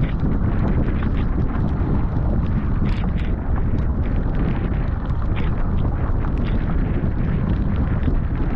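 Wind buffeting the camera microphone on a paddled surfski, a steady low rumble, with a few brief splashes of paddle blades and spray.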